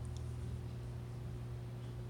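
Room tone: a steady low hum, with no speech or other events.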